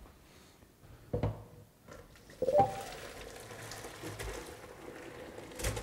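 Hot parboiling water poured from a pot of half-cooked chicken pieces into a metal colander in the sink, splashing steadily. A ringing metal clank comes about two and a half seconds in, and a sharp knock comes near the end.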